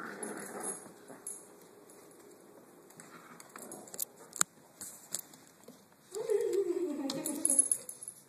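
Two dogs, a Korean Jindo and a small dachshund–papillon mix, playing tug of war over a rope toy: scattered clicks and light scuffling on the wood floor, then a drawn-out growl about six seconds in that falls in pitch.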